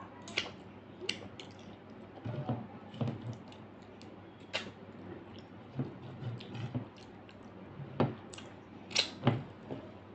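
A person chewing a mouthful of rice and mashed potato eaten by hand, with wet lip smacks and mouth clicks coming in short clusters.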